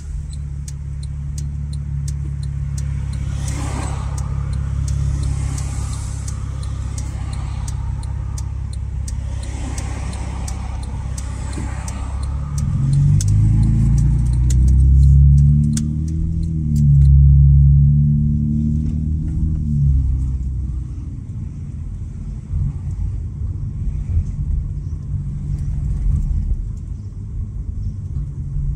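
Honda Accord 3.5-litre V6 with the muffler deleted, running at steady low revs, then accelerating from about 12 seconds in, the exhaust note rising in pitch, dipping at a gear change and rising again before falling back. It settles to a lower, rougher drone near the end.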